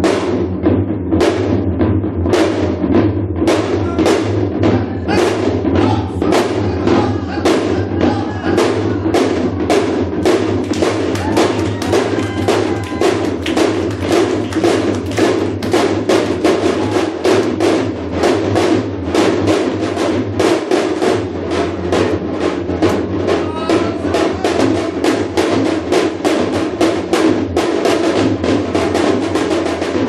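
Korean janggu (hourglass drum) played in shamanic gut style: a fast, steady, driving rhythm of strokes at full loudness.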